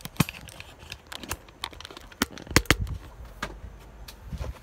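Sharp plastic clicks and knocks as a cordless mini chainsaw and its 20-volt battery pack are handled in a hard plastic carrying case, with a cluster of louder knocks about two and a half seconds in.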